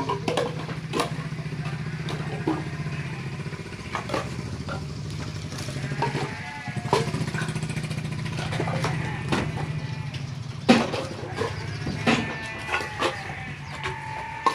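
A vehicle engine running steadily beneath repeated sharp wooden knocks and clatters of timber being thrown down by hand as the wood is unloaded. The loudest knock comes about two thirds of the way through.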